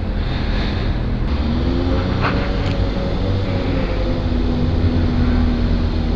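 Honda CBR600RR's inline-four engine running at low revs as the bike pulls slowly away on a first practice ride. The pitch rises a little about two seconds in, then holds steady.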